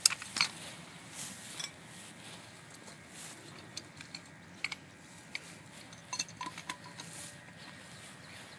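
Sharp metallic clicks and clinks, the loudest a single strike at the very start, then scattered ones and a small cluster about six seconds in: hand tools and fittings knocking on the cap and metal vault of a monitoring well as it is opened.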